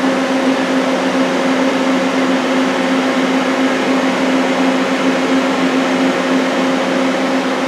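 Steady hum and whir of a powered-up Daewoo Puma 240 CNC turning center at its open electrical cabinet: a constant low hum with a fainter higher hum above it over an even rush of air.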